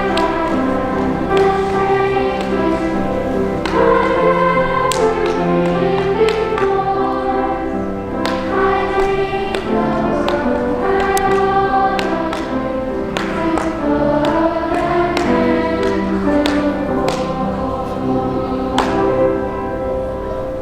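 A choir singing a slow song with held notes over accompaniment, with a sharp tap or beat roughly every two seconds.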